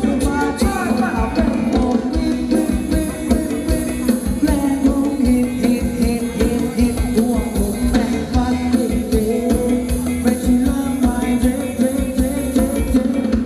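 Live band playing fast Thai ramwong dance music, with a steady drum beat and a singing voice.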